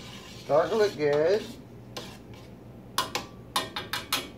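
A spoon stirring a thick mixture in a large stainless steel pan, with a quick run of sharp clicks of the spoon against the pan near the end.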